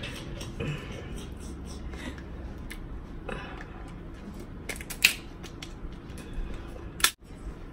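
Eating and handling of shellfish: scattered small clicks and crackles, with a sharper click about five seconds in and another about seven seconds in.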